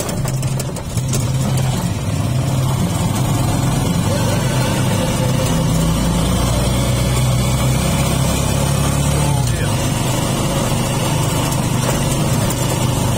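Motorcycle engine running steadily while being ridden along a road, its pitch shifting slightly with the throttle, over a constant rush of road noise.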